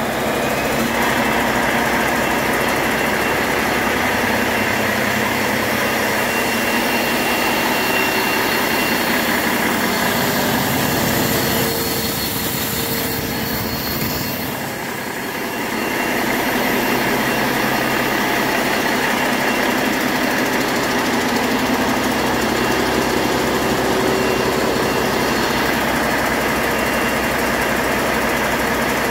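Cummins ISX15 inline six-cylinder diesel engine idling steadily on a test stand just after starting, with a faint steady high whine over the engine note; it dips slightly in level for a few seconds midway. A used engine that the seller says runs excellent.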